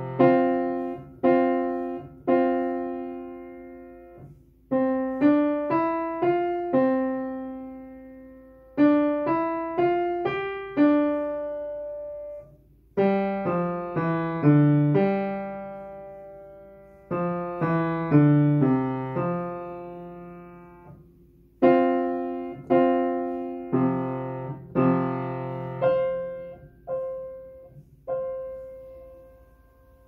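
Yamaha upright piano played slowly: short phrases of a few struck notes and chords with a deep bass, each left to ring and die away, with brief gaps between phrases. The last notes fade out near the end.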